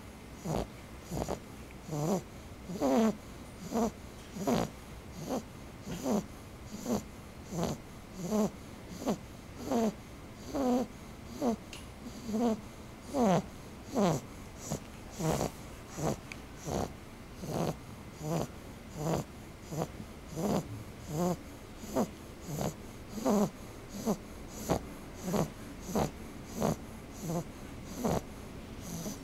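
Snoring: short, pitched snores repeating at an even, quick pace of about three every two seconds.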